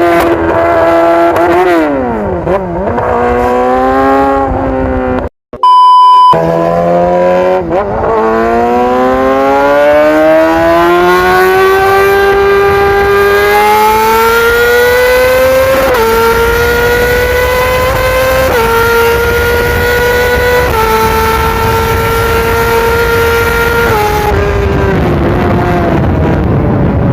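Yamaha R6 inline-four with an Akrapovič exhaust being ridden hard: the revs dip, then climb in a long rising pull and step through several quick gear changes. A brief loud steady beep cuts in about five seconds in.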